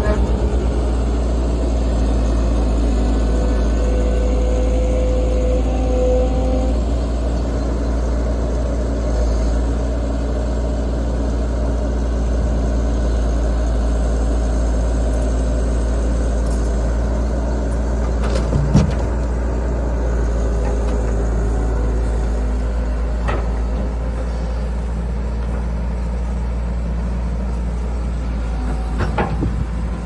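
Cat 311 tracked excavator's diesel engine running steadily under load while the machine works, with a brief higher whine a few seconds in and a single knock about two-thirds of the way through.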